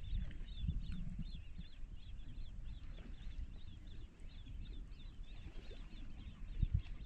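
Many small birds chirping in quick, overlapping short calls, over a low rumble.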